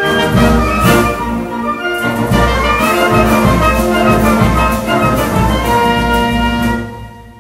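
Youth symphonic wind band playing, brass to the fore over regular percussion strokes; near the end the music thins out and drops away briefly.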